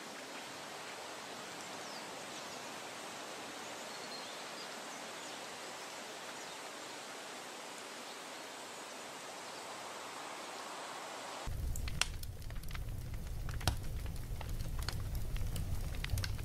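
Steady outdoor background hiss, then, about eleven seconds in, an abrupt change to a charcoal fire under a steel pot crackling and popping with sharp irregular snaps over a low rumble.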